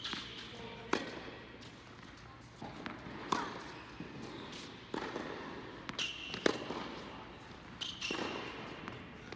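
Tennis balls struck by a racket and bouncing on an indoor hard court: a series of sharp pops every second or two, echoing in the hall, with a few short sneaker squeaks on the court surface.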